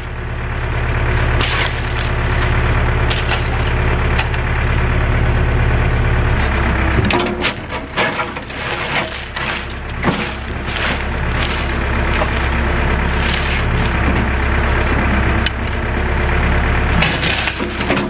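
New Holland backhoe loader's diesel engine running steadily, its note changing about a third of the way in. Then several seconds of cracking and crunching as the bucket crushes a laptop into gravel, with a few more cracks near the end.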